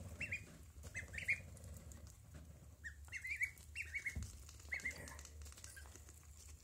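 Ducklings peeping: short, rising chirps in little runs of two or three, repeated every second or so, over a low steady hum.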